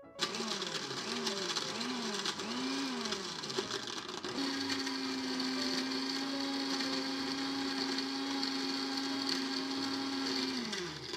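Countertop blender blending a drink with crushed ice. The motor starts with its pitch dipping and rising several times over the first few seconds, then runs at a steady pitch, and winds down and stops near the end.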